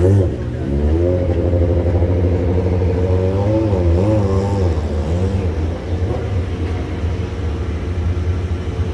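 An engine running with a deep, steady rumble, its pitch holding, then wavering and dipping about four seconds in before the higher tones fade out.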